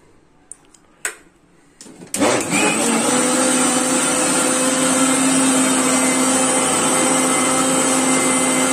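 A couple of sharp clicks as the jar is fitted onto an electric mixer grinder, then its motor switches on about two seconds in and runs at a steady high speed, churning milk cream (malai) with ice water into butter.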